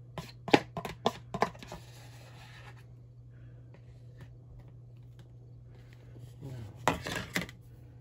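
Kitchen handling sounds: a quick run of light clicks and knocks from about half a second to two seconds in, and another short scraping clatter near the end, over a steady low hum.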